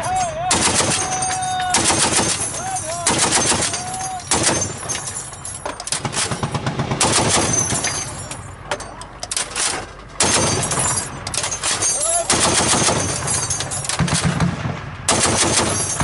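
Automatic gunfire in repeated rapid bursts mixed with single shots, near and loud. There is a brief lull about halfway through, then the firing picks up again.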